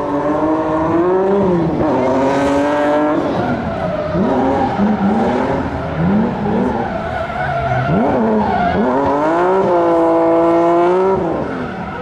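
Drift cars' engines revving hard as they slide sideways, the revs climbing and dropping off again several times, with tyres skidding and squealing. The longest pull is held high near the end before the revs fall away.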